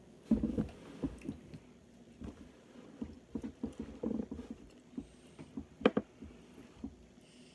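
Quiet chewing and mouth noises from people eating soft snack cake, with small knocks and rustles of handling at a wooden table. One sharp click about six seconds in.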